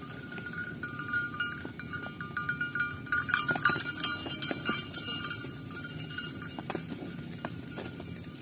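Bells on grazing cattle clanking and ringing in an irregular jangle, busiest and loudest around the middle.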